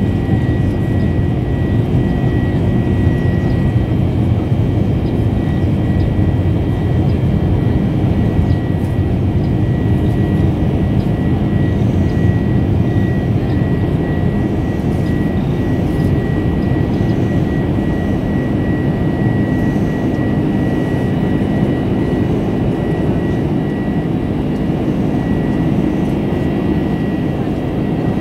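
Boeing 747's jet engines heard from inside the cabin during the climb after takeoff: a steady roar with a thin, steady high whine over it.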